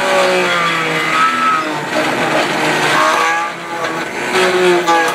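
Electric stand mixer motor running with its head torn off, a whine whose pitch wavers up and down as a wooden board is pressed against the spinning drive.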